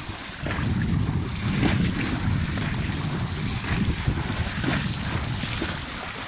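Several horses wading through shallow seawater, their legs splashing again and again, with wind rumbling on the microphone.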